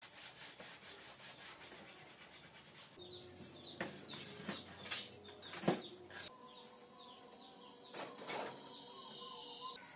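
Kitchen items being moved and handled: a rhythmic rubbing of about three strokes a second, then several sharp knocks and clatters as plastic racks and utensils are set down.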